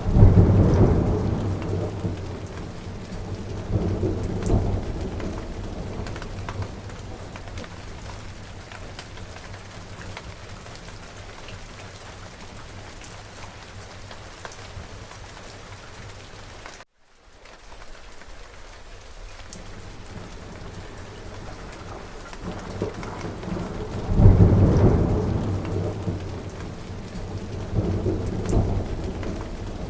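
Steady rain falling with peals of thunder rumbling in, loudest just at the start and again about three quarters of the way through, with smaller rumbles after each. The whole sound drops out for a split second just past the middle.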